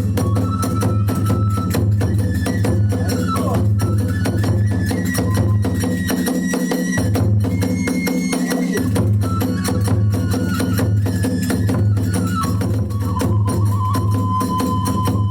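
Kagura hayashi music: a transverse flute playing a high, stepping melody over fast, even drum beats and clashing hand cymbals.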